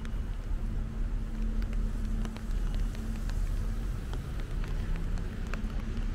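Rainy city street ambience: a steady low rumble of traffic with a faint hum that breaks off and returns, and scattered light ticks of rain throughout.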